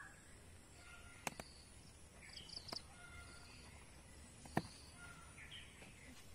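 Quiet outdoor garden ambience with faint, short bird chirps scattered throughout. Two sharp clicks, about a second in and again past the middle, are the loudest sounds.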